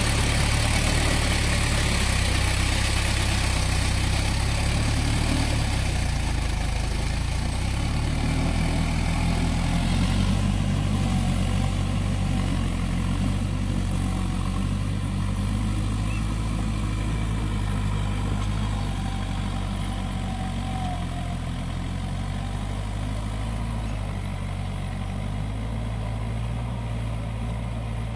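Swaraj 843 XM tractor's three-cylinder diesel engine running steadily while the tractor pulls a rotavator through flooded paddy mud. It grows slightly fainter as the tractor moves away.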